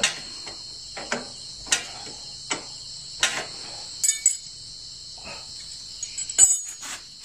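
Scattered metallic clinks and taps of spanners working on a Honda Wave 100's rear axle and brake hardware, with a brief ringing clink about four seconds in and a louder cluster of knocks near the end. Crickets chirr steadily throughout.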